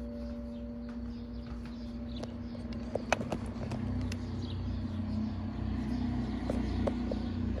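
Church bells dying away after the ringing stops: a low hum note lingers while the higher tones fade out within the first couple of seconds. Underneath is a low outdoor rumble, with a few faint clicks near the middle.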